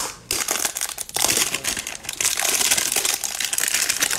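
Cardboard trading-card hanger box being torn open and the plastic wrapping around its stack of cards crinkling, a dense crackling with brief pauses.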